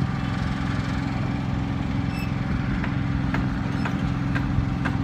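Heavy diesel engine of a truck-mounted mobile crane running steadily, with a few light knocks in the second half.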